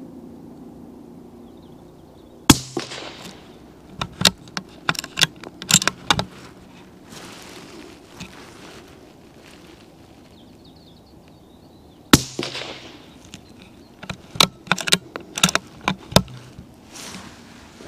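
Two shots from a CZ455 bolt-action rifle in .17 HMR fitted with a SAK moderator, about ten seconds apart, each a sharp crack with a short tail. Each shot is followed a second or two later by a quick run of sharp metallic clicks as the bolt is worked to chamber the next round.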